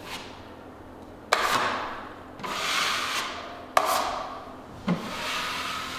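Steel drywall knife scraping wet joint compound: two strokes that each open with a sharp clack and trail off in a rasping scrape, with shorter scrapes between, as mud is worked from the pan onto the ceiling seams.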